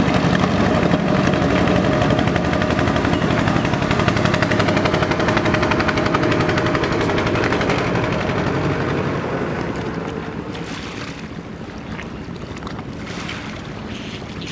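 Boat engine on a wooden country boat running with a fast, even putter of firing pulses. It drops off in level about ten seconds in.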